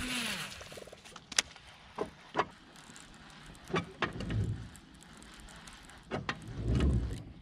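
Baitcasting reel on a cast and retrieve: a brief whir of the spool as line pays out, falling in pitch, then a few sharp clicks and soft low thumps while the line is reeled in.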